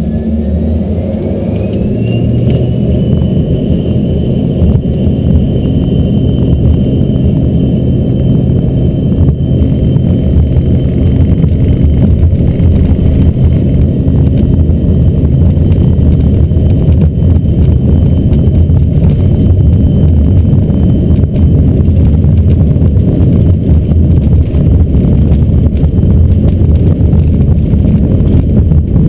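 Embraer ERJ-145's Rolls-Royce AE 3007 turbofans spooling up for takeoff, heard from inside the cabin: a whine rises in pitch over the first two seconds and then holds steady, over a loud rumble of the takeoff roll that keeps growing, with occasional knocks from the wheels on the runway.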